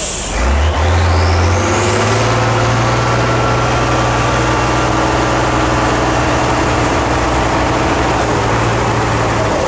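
Tatra 815 trial truck's diesel engine revving up about half a second in and held at high revs under heavy load as the eight-wheeler climbs a steep dirt slope. A high whistle climbs in pitch over the first two seconds, then holds steady.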